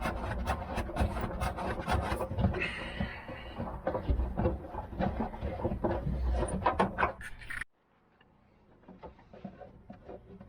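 Rapid clicking, knocking and rubbing of plastic trim panels and clips being worked loose inside a car. It cuts off abruptly about three-quarters of the way through, leaving only faint scattered clicks.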